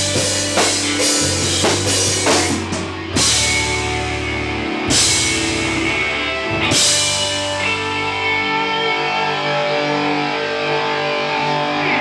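Rock band playing live: drum kit, electric bass and electric guitars, with three cymbal crashes about two seconds apart from roughly three seconds in. About eight and a half seconds in the bass and drums drop out, leaving the electric guitars ringing on.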